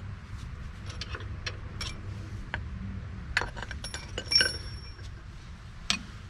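Metal tools and hardware clinking and clattering against each other during hand work on the truck's front suspension: a series of sharp metallic clinks, some with a brief high ring, the loudest about four and a half seconds in.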